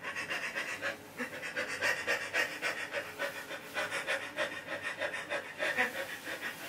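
A person panting hard in quick, rhythmic, breathy gasps, about four a second.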